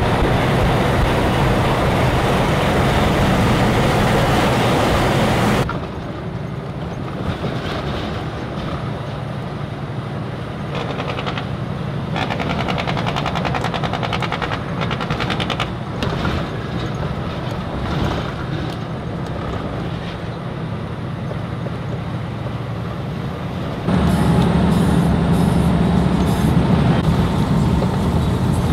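Semi-truck's diesel engine and road noise heard from inside the cab while driving, a steady low drone. It drops sharply in level about six seconds in and comes back louder near the end.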